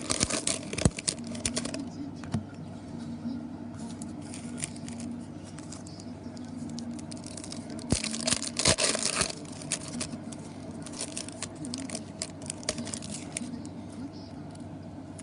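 Card-pack wrappers being torn open and crinkled, with cards being handled, in two louder bursts of crackling, one near the start and one around the middle, and scattered small clicks between.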